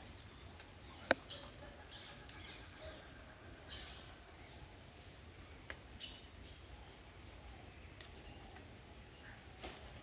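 Insects keep up a steady, high, continuous drone, with a few faint short bird calls. A single sharp tap stands out about a second in, and softer taps come near the middle and near the end.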